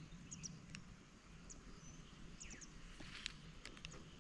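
Quiet outdoor ambience with faint, scattered high chirps and small ticks, and a brief thin whistle about two seconds in.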